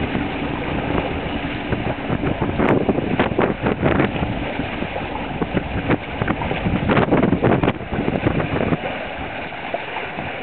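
Wind buffeting the microphone over the rush and splash of water along the hulls of a small trimaran under sail. It gets louder about three to four seconds in and again around seven seconds in.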